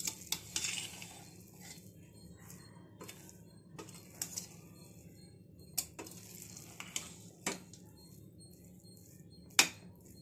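Metal ladle knocking and scraping against the inside of a pressure cooker as freshly cooked biryani rice is stirred: irregular clinks with soft scraping between, the loudest knock near the end.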